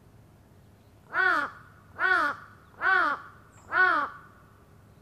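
A crow close by, cawing four times in a steady series a little under a second apart. Each caw is a short harsh call that rises and falls in pitch.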